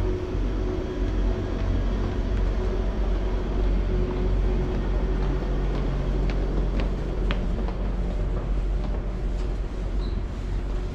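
A train running on the tracks alongside, a steady low rumble and hum. A few footsteps clack on the wooden decking midway.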